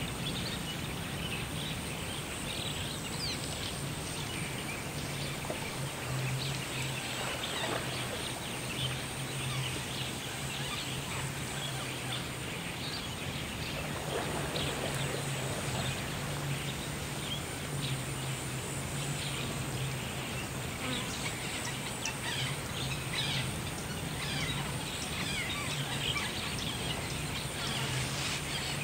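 Natural ambience of insects buzzing steadily, with many short bird chirps scattered throughout.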